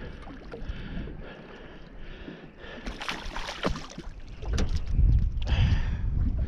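A hooked queenfish splashing at the surface beside a small aluminium boat, with a sharp spray of splashing about three seconds in, then knocks and low rumbling as the fish is lifted aboard onto the deck.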